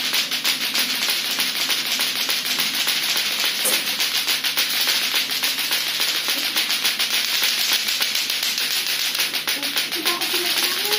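Lato-lato clacker toy, two hard plastic balls on a string swung so they knock together, clacking fast and evenly without a break.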